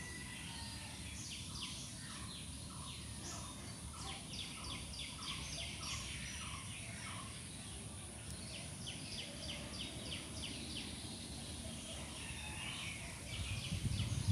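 Birds chirping in quick runs of short high notes, about four or five a second, over a steady low background hum; a louder low rumble comes in near the end.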